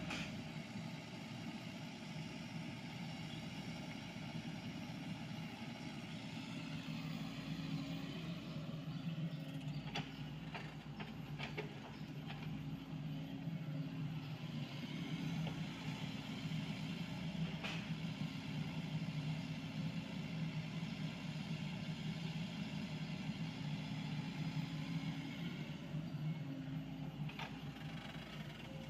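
Sany SY55C mini excavator's diesel engine running steadily as it digs and moves soil, its note shifting a little as the arm works. A few sharp knocks break in now and then.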